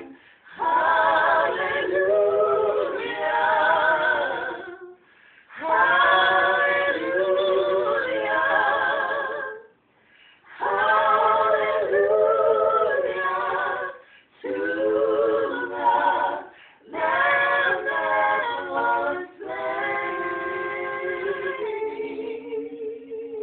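Voices singing a praise song a cappella, in phrases of a few seconds with short breaks between them, the last note held and fading near the end.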